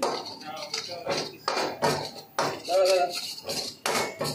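Metal ladle scraping and knocking against a metal wok as spices are stirred, with irregular clanks about every half second.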